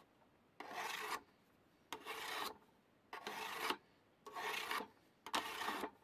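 Steel knife blade scraped across a sharpening stone in five even strokes, about one a second, each a short rasp of about half a second.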